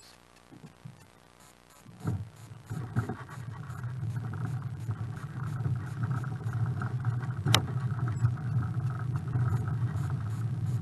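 Kayak trolley wheels rolling over a concrete slipway, a steady rumble that starts about two seconds in as the kayak is pulled up the ramp. There is one sharp click about two-thirds of the way through.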